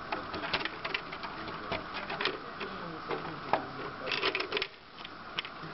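Irregular plastic clicks and knocks from LEGO parts and cable plugs being handled by hand, with a quick run of clicks about four seconds in.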